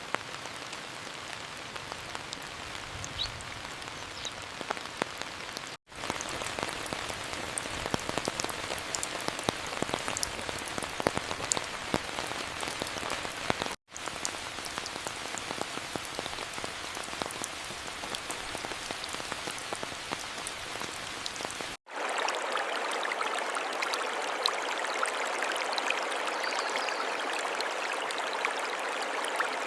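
Steady rain falling, with many small drop impacts. The sound drops out briefly three times, and after the last gap it is thinner in the low end.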